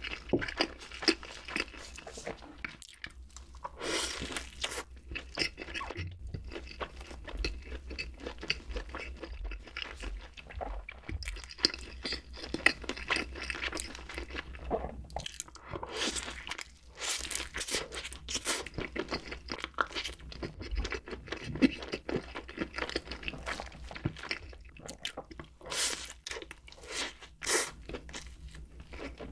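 Close-miked eating: a person biting, crunching and chewing crisp food in irregular crackly bites, with several louder crunchy bites along the way.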